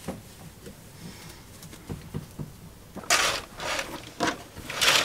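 A few soft knocks of someone moving in a cramped wooden bunk, then from about three seconds in several loud swishes and rustles of cloth as a capsule's fabric curtain is pulled open.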